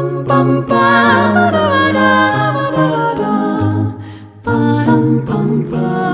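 LG Optimus G ringtone playing: a hummed, wordless vocal melody over a low bass line, with a brief break about four seconds in.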